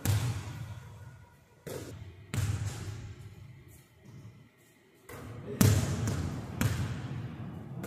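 Basketball bouncing on a hardwood gym floor: about six separate sharp bounces, the loudest a little past halfway, each ringing on in a long echo through the big hall.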